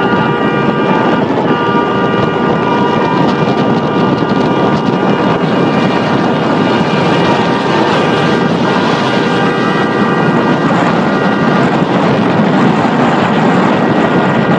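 Vehicle driving fast across desert sand, its engine and tyre noise mixed with heavy wind on the microphone. A steady tone at several pitches holds over the noise for most of the time, breaking off briefly about a second and a half in and ending a few seconds before the end.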